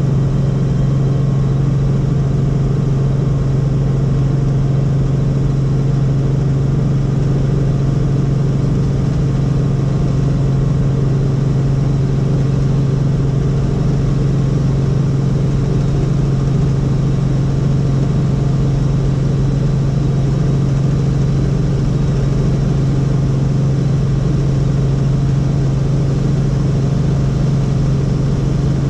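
Helicopter in flight heard from inside the cabin: a loud, steady engine and rotor hum with a strong low drone that does not change.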